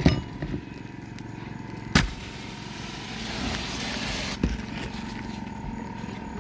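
Roofing work on asphalt shingles: a sharp knock about two seconds in, then a scraping rustle, then a lighter click, over a steady background hum.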